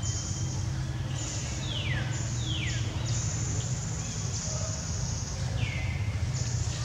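Outdoor ambience: a high insect-like buzzing that starts and stops in stretches, three short whistled calls that each fall in pitch, two of them close together about two seconds in and one near the end, over a steady low rumble.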